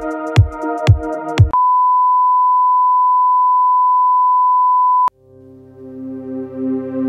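Electronic background music with a regular kick drum breaks off about one and a half seconds in and gives way to a single steady, loud electronic beep tone, held for about three and a half seconds before it cuts off suddenly. Soft, sustained ambient music then fades in.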